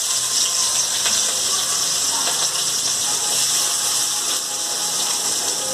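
Sliced onions sizzling steadily in hot oil with whole spices in a kadai, frying just after being added.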